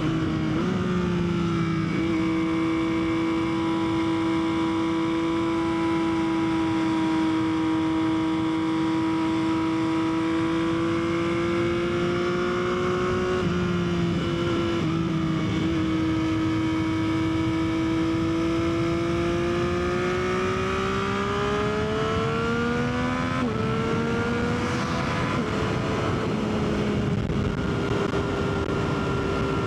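Motorcycle engine, a Yamaha XSR900 inline-three, running at a steady cruise under wind rush. Its pitch climbs over a few seconds past the middle, then drops in a step about three quarters of the way through, as at a gear change.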